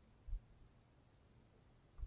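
Near silence, with one soft, low thump about a third of a second in.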